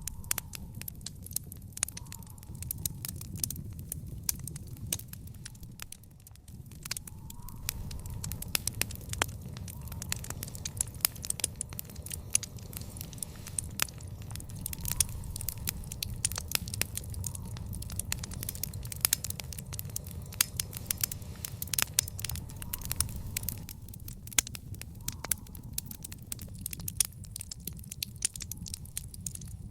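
Wood fire in an outdoor fire pit burning, crackling steadily with frequent sharp pops over a low steady rumble of the flames. The crackle thins out briefly about six seconds in.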